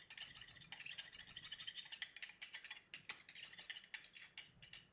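Spatula stirring gel polish and cleaner in an airbrush's metal colour cup: a fast, faint run of scraping ticks.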